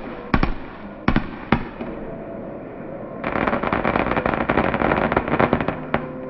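Consumer fireworks going off: several sharp bangs in the first two seconds, then a dense crackle of many small pops for about two and a half seconds, ending with one more bang.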